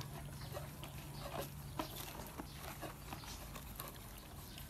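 Thai Bangkaew puppies licking and nosing at plastic feeding bowls, with a faint scatter of irregular clicks and taps as the bowls shift on concrete; the food is all gone.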